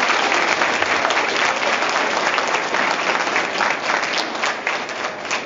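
Audience applauding, many pairs of hands clapping at once; the applause starts to die down near the end.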